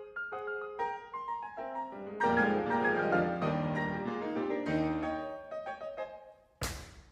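Piano ensemble playing a ragtime-style piece, with chords, bass notes and a quick melody. Near the end, a sharp knock cuts across the music.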